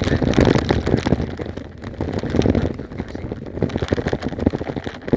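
Bicycle rattling and clattering over a rough dirt track, with dense irregular knocks and wind buffeting the microphone.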